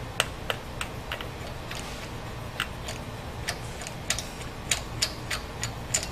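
Ratchet and 24 mm socket clicking as the crankshaft bolt is backed out of a Volvo red-block four-cylinder engine, with the crankshaft held still by a counterstay. The clicks come in an uneven series, about three a second, with a short pause near the middle.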